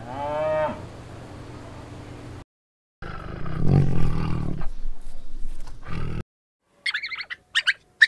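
A cow moos once, a short call falling in pitch, followed by low steady noise. After a brief silence a tiger growls low and loud for about three seconds, then a rat squeaks several times in short high bursts near the end.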